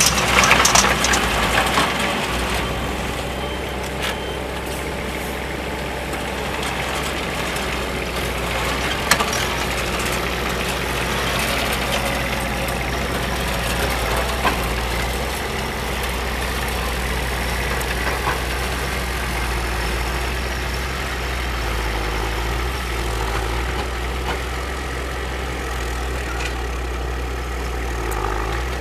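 Kubota compact tractor's diesel engine running steadily under load while it drives a PTO rotary tiller through bare soil. In the first second or two the tiller is louder, with a rough grinding of soil and stones; afterwards the engine hum dominates.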